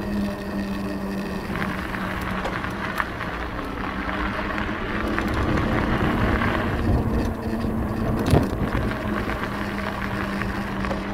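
Wind rushing over a camera's built-in microphone while riding a folding e-bike along a trail, with a steady low hum underneath. A single sharp knock comes about eight seconds in.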